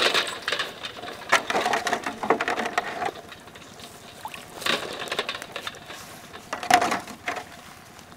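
Boiled duck eggs tipped from a wire strainer into a metal basin of water, clattering against the wire and the basin and splashing. There is an irregular run of knocks in the first three seconds, then a few single knocks and splashes later.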